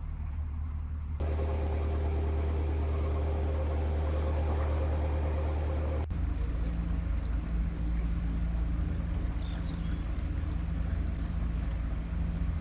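Narrowboat's diesel engine running steadily at cruising speed, a low, even chug. Its tone changes abruptly about a second in and again about halfway through.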